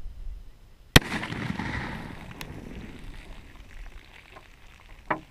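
A single shotgun shot about a second in, firing a 3½-inch shell of T shot, with its echo trailing off over the next two seconds. A fainter pop comes near the end.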